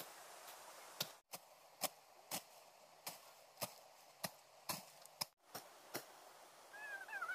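Machete strokes chopping through weeds and brush, sharp cuts about two a second. A bird chirps briefly near the end.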